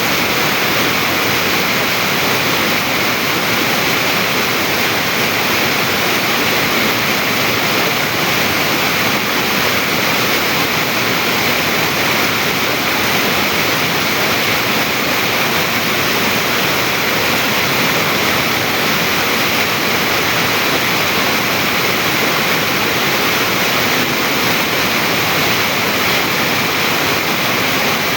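Stream water rushing and splashing over rock in a steady, loud, unbroken hiss.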